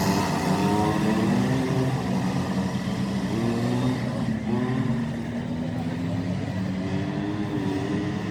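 Go-kart engine running hard, its pitch climbing again and again as it accelerates and falling back between climbs.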